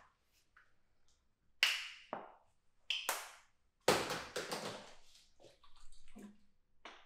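Water splashing in several short bursts, the first about one and a half seconds in and the loudest about four seconds in, each fading quickly.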